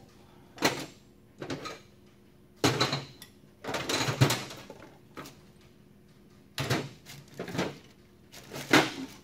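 Metal hand tools clanking and being shoved about in a string of about seven short clatters and knocks, the sound of someone rummaging through tools.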